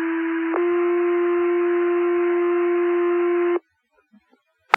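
Two-tone sequential fire-paging tones over a dispatch radio channel: a steady low tone that steps up slightly about half a second in to a second, louder tone held about three seconds, with radio hiss behind it. The tones set off the volunteer firefighters' pagers for a call; a short radio click follows near the end.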